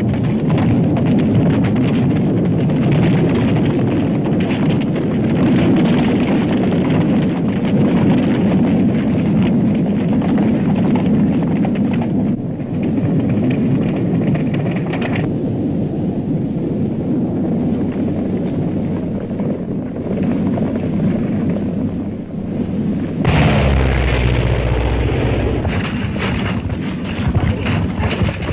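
Old film soundtrack of a steady, dense rumbling roar, with a heavier low rumble coming in about 23 seconds in.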